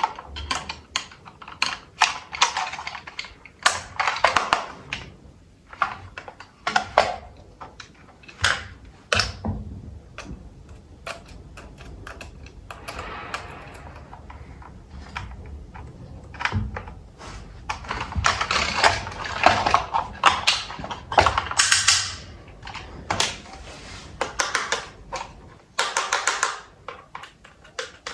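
Hands handling toy packaging: a string of irregular clicks and knocks with stretches of crinkling and rustling, as of plastic wrap and cardboard.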